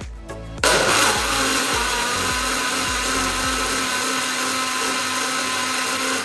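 Cadence Blender Dream personal blender motor running, starting suddenly about half a second in, holding steady and loud, then cutting off near the end.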